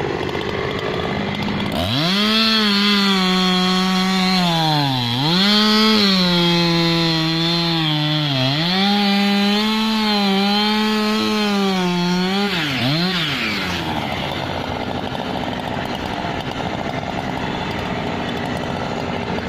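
Two-stroke chainsaw revving up to full throttle about two seconds in and cutting wood. Its high whine dips and recovers several times, and the revs fall away after about thirteen seconds, leaving a lower steady running noise.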